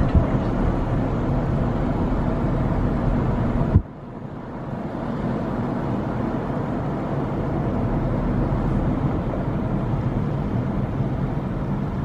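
Steady road and wind noise of a car driving slowly, heard from inside with the window open. It breaks off abruptly with a knock about four seconds in, then builds back up.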